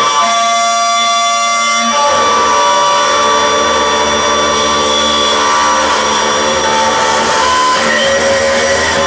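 Loud electronic noise music: a dense wall of sustained droning tones and hiss. For about the first two seconds it thins to a cluster of held tones, then the full noise returns.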